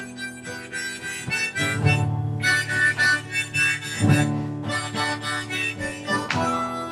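Background music: a harmonica playing held notes over acoustic guitar.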